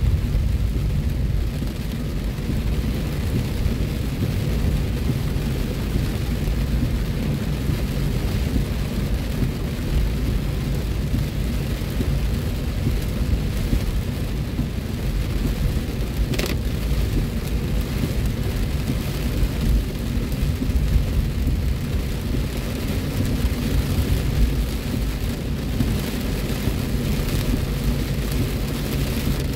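Heavy rain falling on a car's roof and windshield, heard from inside the moving car over a steady low rumble of road noise. A single sharp click about sixteen seconds in.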